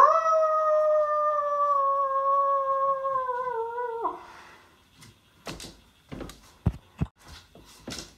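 A person's wolf-howl impression: one long howl that swoops up at the start, holds, sinks slowly and drops off about four seconds in. A few sharp clicks and knocks follow.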